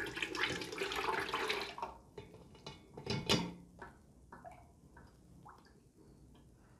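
Liquid being poured from a glass pitcher through a mesh strainer into a large pot, splashing for about two seconds and again briefly about three seconds in. Then it trickles and drips more and more faintly as the strainer drains.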